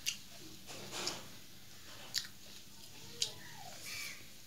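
A person eating rice by hand from a steel plate: chewing and mixing, with four sharp clicks about a second apart.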